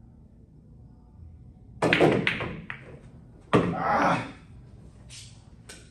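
Pool balls clacking: a quick cluster of sharp knocks as the balls are struck and collide about two seconds in, then another loud knock with a short ringing tail a second and a half later, and a few faint clicks near the end.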